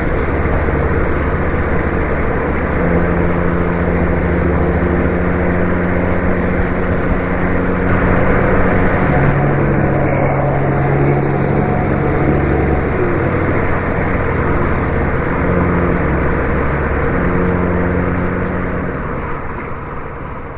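Vehicles driving at motorway speed: a steady low engine drone over tyre and wind noise, its pitch stepping up and down now and then, fading out near the end.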